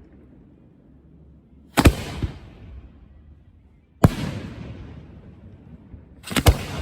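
Fireworks exploding: a loud bang about two seconds in, another at about four seconds, and a quick pair near the end, each followed by a fading, echoing rumble.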